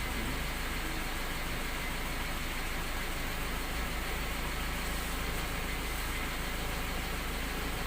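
1991 Toyota Corolla's 4A-F four-cylinder engine idling steadily.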